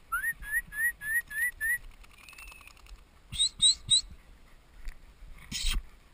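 A person whistling to call hunting dogs: six quick rising whistle notes, then three higher rising notes about three and a half seconds in. A brief rustle near the end.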